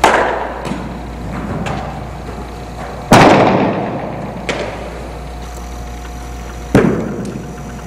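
Three sharp impacts from indoor baseball practice, at the start, about three seconds in and near the end, each followed by a long echo; the middle one is the loudest.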